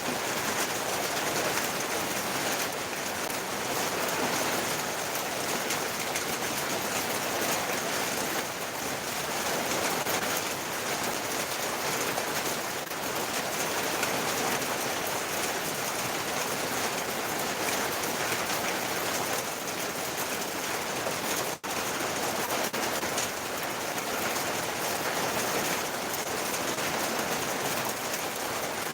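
Steady rain falling, an even hiss that holds at one level, broken only by a momentary gap about two-thirds of the way through.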